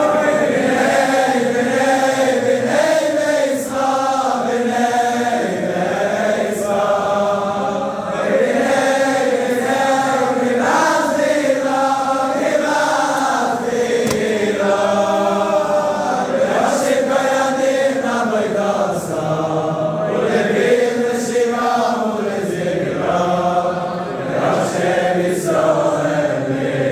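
Large crowd of men singing a melody together, with arms linked as they sway.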